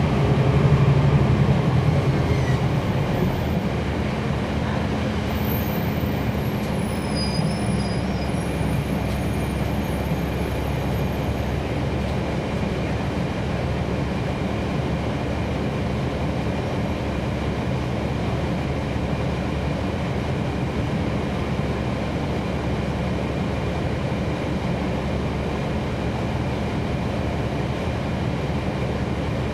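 Interior sound of a NABI 40-SFW transit bus with its Cummins ISL9 straight-six diesel running: a steady low rumble of engine and drivetrain, louder for the first three seconds or so, then even.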